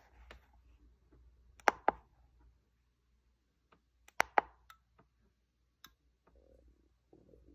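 Keypad buttons of a Foxwell NT530 handheld scan tool clicking under a thumb: two quick, sharp double clicks about two and a half seconds apart, with a few fainter single clicks between and after.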